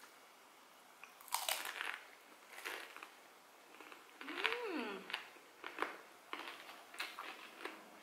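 Crisp battered fried snacks (gorengan) bitten and chewed close to the microphone, with separate crunches about a second and a half in, near three seconds, and several more in the last two seconds. About halfway there is a short hummed "mm" that rises and falls in pitch.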